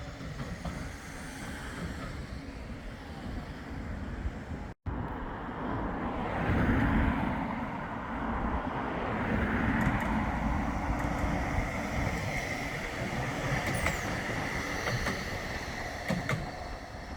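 Bombardier Flexity 2 tram running along street track with a steady rumble, loudest about seven to ten seconds in. The sound cuts out for an instant nearly five seconds in.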